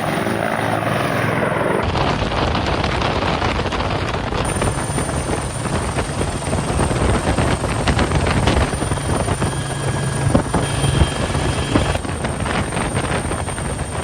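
Bell 212 helicopter running loudly, a dense rotor and turbine noise with a low steady hum, changing abruptly a few times where shots are joined.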